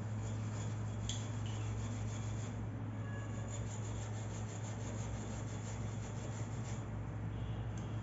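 Steel-wool scrubber rubbing and scratching against a chrome angle valve and tap in quick back-and-forth strokes, over a steady low hum.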